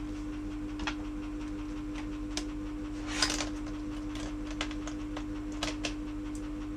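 Scattered light clicks and taps, irregular, one a little louder about three seconds in, over a steady low electrical hum: small plastic laptop parts and tools being handled during disassembly.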